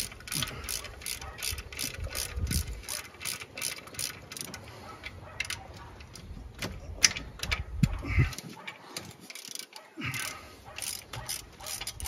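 Hand socket ratchet clicking in quick runs, about five clicks a second, as a bolt is turned loose, with short pauses and one sharper click about seven seconds in.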